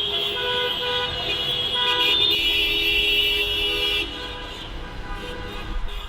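Several car horns honking over one another in traffic. There are short toots in the first second or so, then a loud held blast from about two to four seconds in, after which the honking drops back to quieter, scattered horns.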